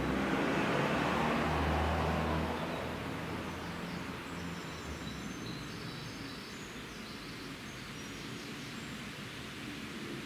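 A vehicle passing, its engine noise fading away after about two and a half seconds, then quiet street ambience with faint birdsong.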